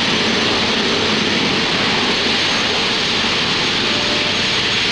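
Short SC.1 vertical take-off jet hovering, its lift jets running with a loud, even, high rushing noise.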